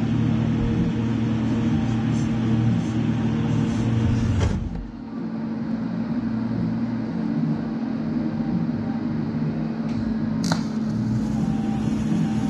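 Lincoln Electric Square Wave 200 TIG welder fusion-welding a steel billet stack with no filler or flux. A steady buzz and hiss drops away about four and a half seconds in. About ten seconds in, the arc strikes with a sharp crack and settles back into a steady buzz and hiss.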